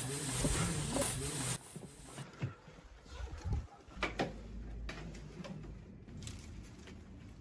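Rustling and handling noise of clothes and objects being moved and searched through, loudest in the first second and a half, followed by a few scattered clicks and knocks.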